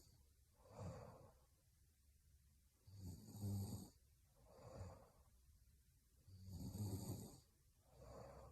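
A woman snoring faintly in her sleep: two low buzzing snores on the in-breath, about three and a half seconds apart, each followed by a softer breathy out-breath.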